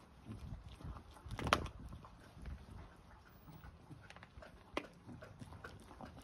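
Staffordshire bull terrier gnawing a raw pork trotter: irregular crunches and clicks of teeth on the trotter. A louder crunch comes about a second and a half in, and another near the end.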